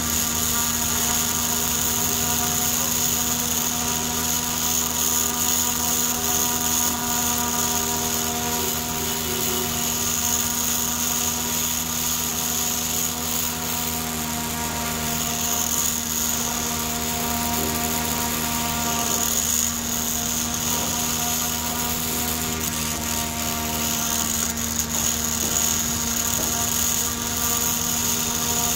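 Small 12-volt brushed DC motor from a DVD drive spinning a plastic propeller at high speed, running steadily with a whine and the whir of the blades.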